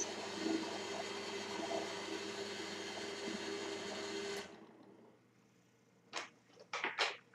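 Five-speed bench drill press running steadily with a boring tool turning in the chuck; the sound cuts off suddenly about four and a half seconds in. A few short clicks or scrapes follow near the end.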